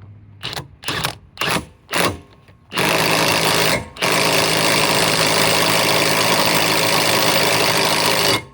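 Bosch GDS 18V-330C cordless impact wrench tightening a bolt: four short trigger bursts, then hammering in two long runs, about a second and about four seconds, with a brief break between.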